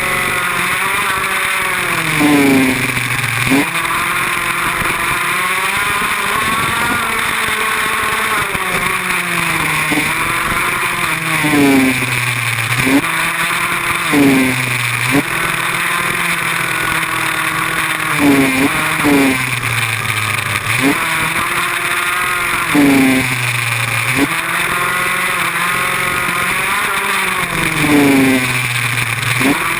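Small off-road motorbike engine ridden hard around a dirt track. It revs up and drops off over and over as the throttle opens and closes, the engine note sweeping up and falling back every few seconds.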